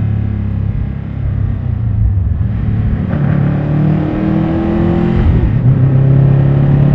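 Tuned Subaru WRX STI's turbocharged boxer four-cylinder engine and exhaust under way, pitch rising for about two seconds from around three seconds in, a brief dip, then holding steady.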